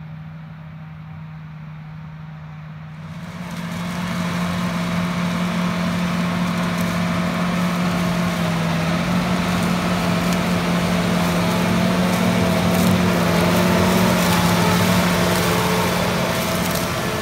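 John Deere 8245R tractor running under load as it pulls a chisel plow through corn stalks: a steady engine hum that gets much louder about three seconds in and keeps swelling as the tractor draws near.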